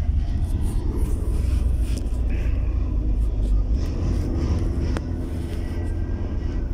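Car driving at low speed, heard from inside the cabin: a steady low rumble of engine and road noise, with a single sharp click about five seconds in.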